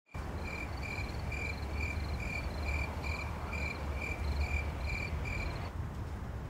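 A cricket chirping steadily, a little over two chirps a second, stopping about five and a half seconds in, over a steady low rumble.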